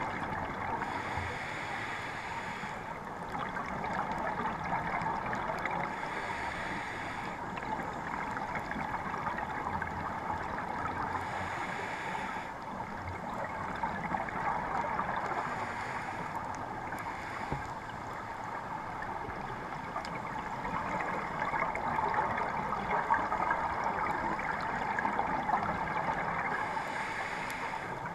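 Scuba regulator exhaust bubbles gurgling underwater, heard through a GoPro Hero 3+ underwater housing as a muffled rushing noise, with a fresh burst of bubbles every few seconds as the diver breathes out.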